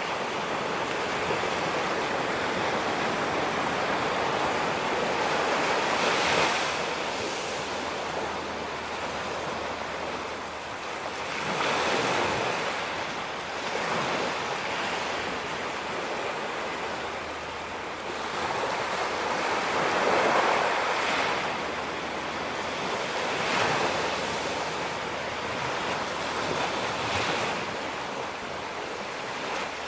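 Ocean waves breaking and washing up a beach in a continuous rush of surf, swelling with each breaker about every few seconds, with some wind noise on the microphone.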